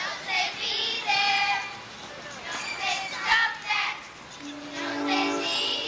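A group of young girls singing together, with a long held note starting about four and a half seconds in.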